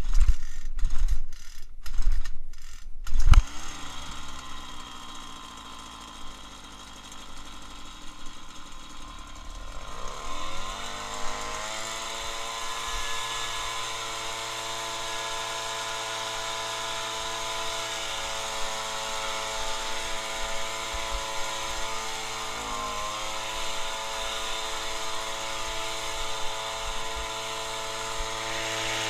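Homelite two-stroke gas leaf blower pull-started cold on full choke: several quick yanks of the starter cord, then the engine catches about three seconds in. It runs low, rises in pitch to a steady higher speed about ten seconds in, and dips briefly before steadying again.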